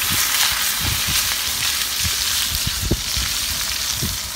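Ribeye steaks sizzling steadily as they sear in a hot cast iron skillet, with a few dull low knocks from handling.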